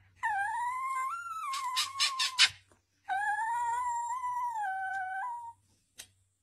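Small dachshund howling: two long wavering howls a little over two seconds each, the first breaking into a few short, sharp sounds near its end.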